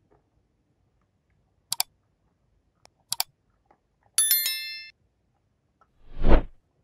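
Two sharp double clicks a little over a second apart, then a short metallic ring of several tones that fades out, and a dull thud near the end.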